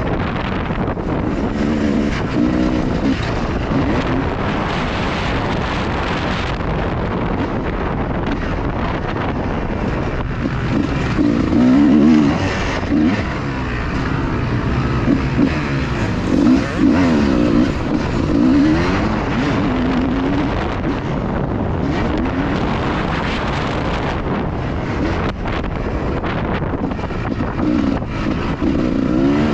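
2003 Honda CR250R two-stroke single-cylinder engine revving up and down, its pitch rising and falling repeatedly, half buried under heavy wind noise on the camera's microphone.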